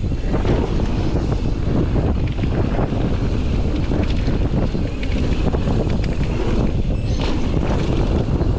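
Wind buffeting an action camera's microphone while riding an electric mountain bike along a dirt trail, mixed with the rumble of the tyres rolling over the dirt. The noise is steady and loud throughout.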